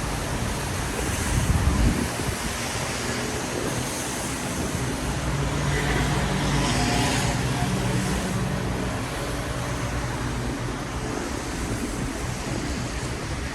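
Rainy city-street ambience: a steady hiss of rain and tyres on the wet road. There is a short low rumble about two seconds in, and around the middle a vehicle passes with a low engine hum and a swish of tyres on wet pavement.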